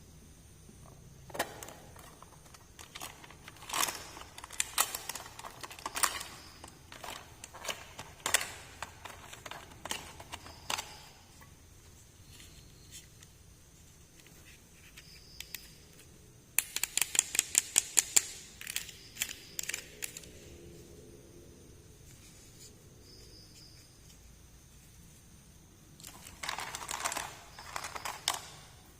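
Small toy pieces and their packaging being handled during an unboxing: scattered clicks, taps and crinkles, with a quick run of rapid clicks about halfway through.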